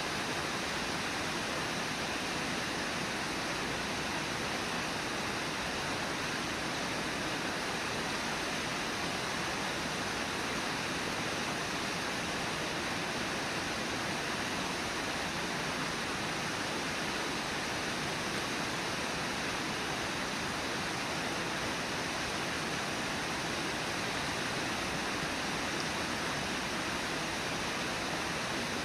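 Steady rush of the Brooks River running over its riffles and falls: a constant, even hiss of flowing water.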